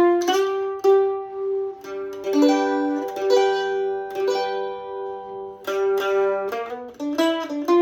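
Loar LM-310F F-style mandolin playing a blues in G. Quick picked single-note runs at the start and end frame a stretch of longer held notes, several sounding together, in the middle.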